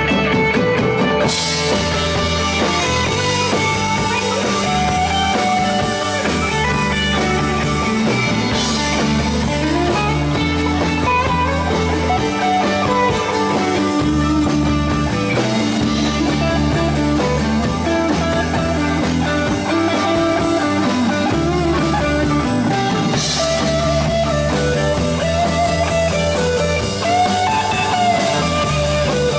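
Live band playing an instrumental passage with no singing: mandolin and electric guitars over bass and a drum kit keeping a steady beat, with a few cymbal crashes. Picked up by the camera's built-in microphone.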